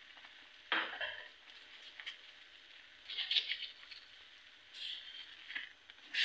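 Spoon stirring thick white sauce in a pan: a few short scrapes and squelches, the first the sharpest, about a second in.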